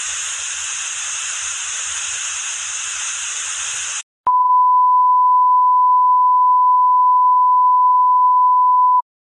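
Analog television static hiss for about four seconds, cut off by a click, then a steady single-pitch test tone, louder than the hiss, the reference tone that goes with colour bars; it stops just before the end.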